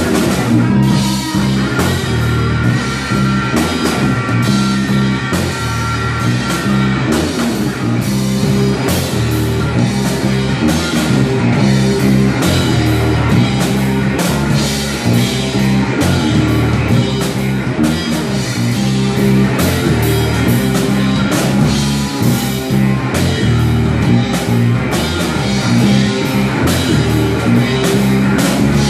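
Live blues-rock band playing loud: distorted electric guitars over a driving drum kit, with no singing.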